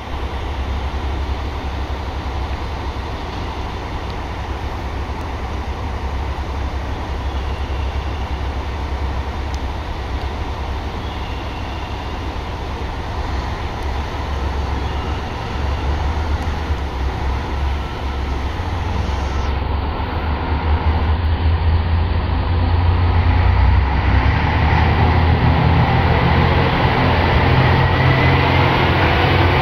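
Diesel railcar engine running as a two-car train pulls out, a low drone that grows louder in the second half, with its engine note rising in pitch near the end as the train picks up speed and passes close by.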